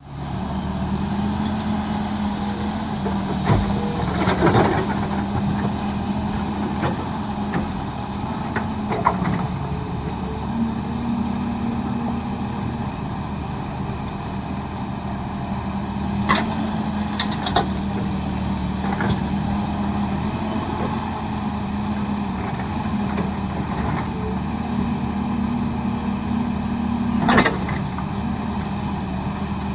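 A large diesel engine running steadily, with a few short sharp knocks and hisses, the strongest near the end.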